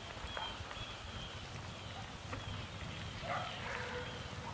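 Outdoor ambience: wind rumbling on the microphone, with several short, high, falling chirps and a dog barking a few times about three seconds in.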